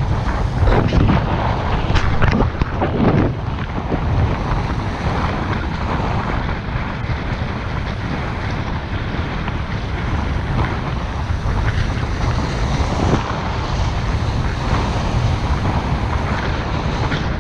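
Strong wind buffeting the microphone over choppy sea water, with the heaviest gusts in the first few seconds.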